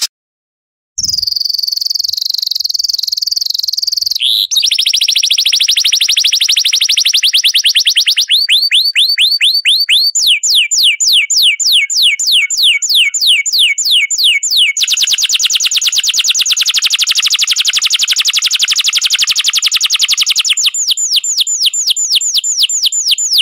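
Recorded songbird song: high, rapid trills and runs of quick downward-sweeping notes, about five a second, alternating with fast even trills, after a moment's silence at the start.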